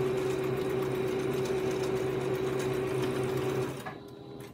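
Electric sewing machine running steadily as it stitches a seam through two layers of quilt fabric, then stopping shortly before the end. A few light clicks follow.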